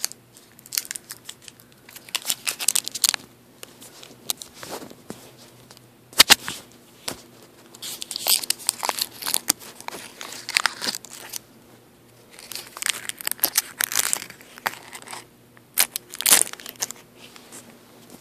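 Plastic bag of Burt's Bees honey throat drops being crinkled and handled, in several bursts of sharp crackles with short pauses between.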